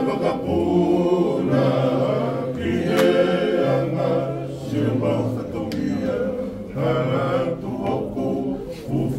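A group of men singing a Tongan song together in harmony, accompanied by strummed guitars and ukulele.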